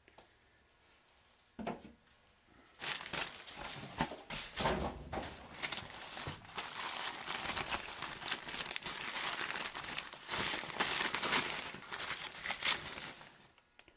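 Packing paper crinkling and crumpling as a wrapped tool is unwrapped, starting about three seconds in and going on for about ten seconds.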